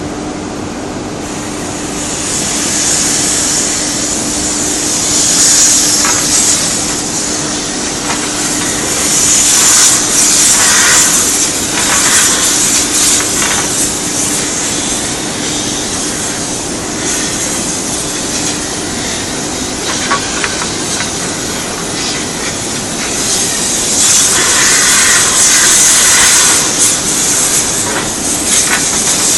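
Compressed-air lance blowing into a rolling-mill furnace, a loud hiss that swells in three long surges. Under it runs a steady low hum that fades out about two-thirds of the way through.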